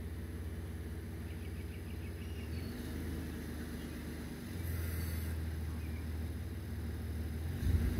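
A steady low motor hum that grows louder about halfway through and again near the end, with a few faint high peeps, likely from the Canada goose goslings.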